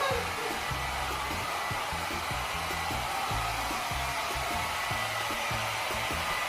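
Handheld hair dryer running steadily, blowing a continuous rush of air.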